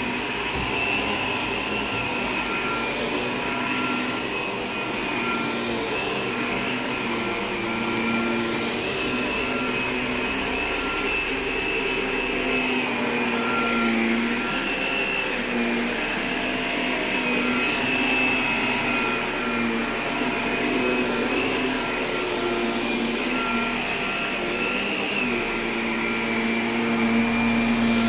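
Upright vacuum cleaner running continuously on carpet: a steady motor hum with a high whine that wavers slightly as it is pushed over the pile.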